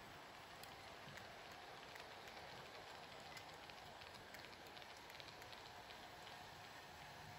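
Model railway coaches rolling past on the track: a faint, even hiss with scattered light clicks from the wheels.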